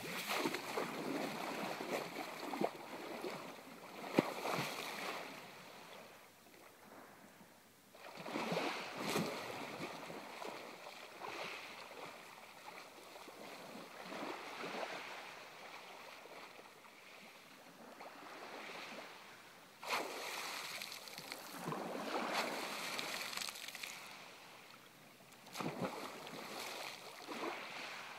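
Small sea waves washing in and out over a pebble beach, swelling and fading every few seconds, with one sharp click about four seconds in.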